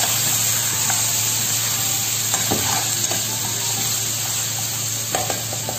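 Pork ribs sizzling in hot oil in a frying pan as they are sautéed and stirred with a spatula. The spatula scrapes and knocks against the pan a few times, about halfway through and again near the end.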